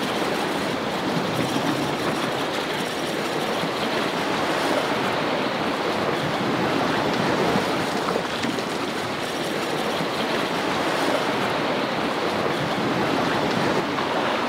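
Sea washing against the rocks, a steady rushing with slight swells.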